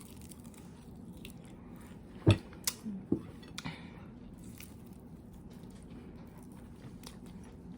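A person eating fried chicken close to the microphone: chewing with a few sharp bite clicks between about two and four seconds in, the first the loudest.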